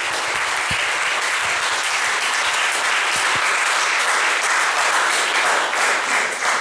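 Audience applauding: steady, dense clapping from many hands that thins out near the end.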